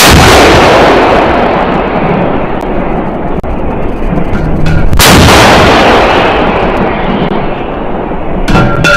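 Fire from 152 mm 2S3 Akatsiya self-propelled howitzers: two very loud shots about five seconds apart. Each shot is a sharp blast that dies away in a long rumble over several seconds.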